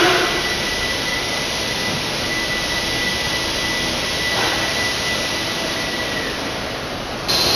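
Steady running noise of a rockwool sandwich panel production line, an even machine hiss with a thin high whine that fades out about six seconds in. The noise gets abruptly louder near the end.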